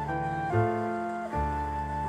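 Soft background music: sustained flute-like melody notes over piano and a steady bass, changing note about every half second.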